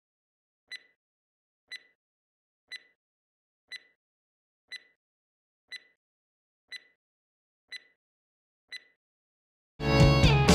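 Countdown beeps: a short, high electronic beep once a second, nine in all. Loud music cuts in suddenly near the end.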